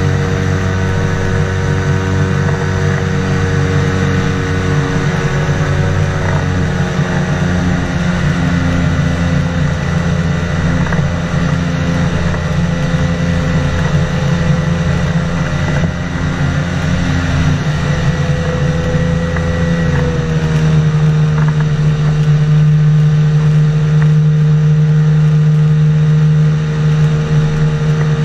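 Engine and pusher propeller of an amphibious ultralight trike running steadily in flight. Its note shifts slightly and gets a little louder about twenty seconds in.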